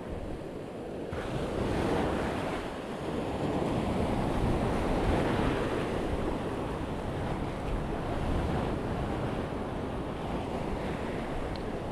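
Waves breaking and washing in the surf, swelling louder and softer, with wind buffeting the microphone.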